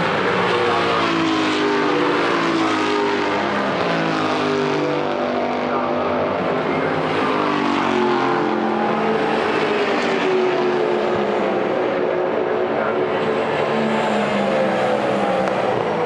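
Several Superstars Series race saloons' engines running hard together, each pitch climbing through the revs and dropping back at gear changes over and over.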